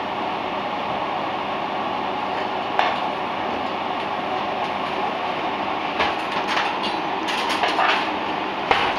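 Steady rushing noise of a kitchen cooker-hood extractor fan running over the hob, with sharp clinks and clatters of pans and utensils once about three seconds in and several times from about six seconds to the end.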